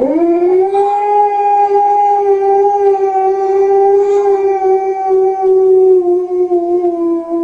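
A husky howling one long, steady note that slides up in pitch at the start and dips slightly lower near the end.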